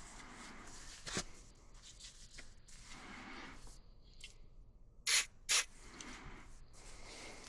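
Hands working on dryer parts with low rubbing and scraping, a click about a second in, then two short hissing bursts half a second apart about five seconds in.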